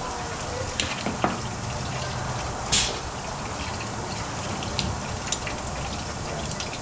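Used engine oil draining from a car's oil pan into the pit's drain: a steady pouring rush, with scattered light metallic clicks and a short hiss about three seconds in.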